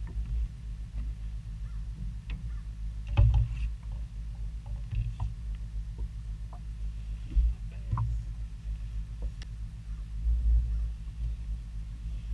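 Fishing boat on a lake: a steady low rumble with scattered light knocks and clicks from the hull and rod gear, the sharpest about three seconds in and again near eight seconds.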